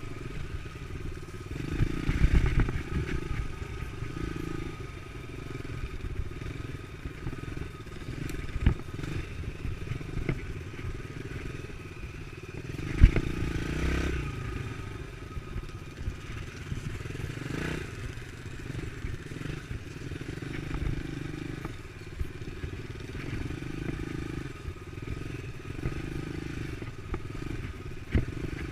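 Dirt bike engine running steadily along a trail, with scattered knocks and clatter; one sharp, louder knock about halfway through.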